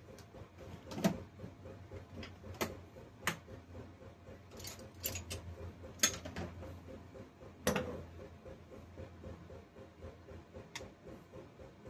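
Hand tools and small metal parts clicking and knocking as a small-engine carburetor is taken apart on a workbench: about a dozen separate sharp clicks, the loudest a little past the middle, over a faint steady hum.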